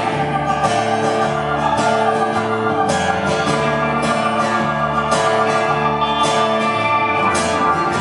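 Band playing an instrumental passage between sung lines, with guitar to the fore and a low bass line that steps to a new note about once a second.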